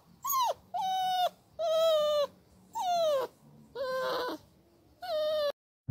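Pug puppy whining: six short, high-pitched whines in a row, each dropping in pitch at its end.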